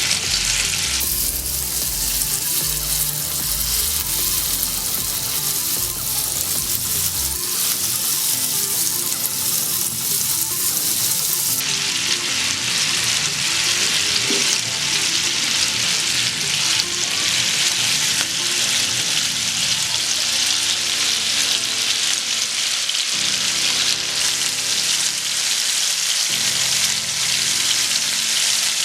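Marinated chicken pieces frying in hot sunflower oil in a pan: a steady sizzle that grows louder about a second in.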